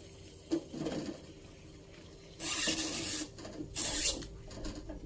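Spatula stirring rice vermicelli in a small pot of boiling water, with two short rasping scrapes of the utensil against the pot, the first about two and a half seconds in and the second around four seconds. A light knock comes about half a second in, over a steady faint hum.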